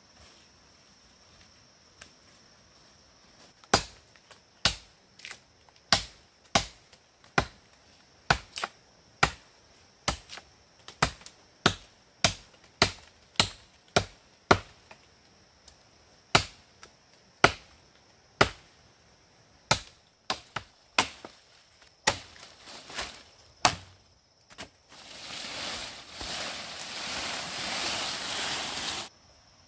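Machete chopping a bamboo stalk: a long run of sharp chops, nearly two a second. Near the end the chopping gives way to a few seconds of leafy rustling.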